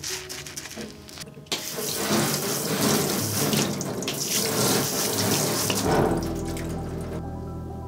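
Water spraying from a handheld spray nozzle onto a kitchen knife blade to rinse it. The spray starts about a second and a half in and cuts off shortly before the end.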